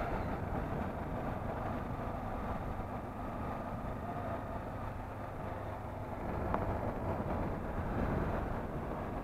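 Motorcycle engine running while riding along a street, with wind rumbling on the microphone. There is a faint tick about six and a half seconds in.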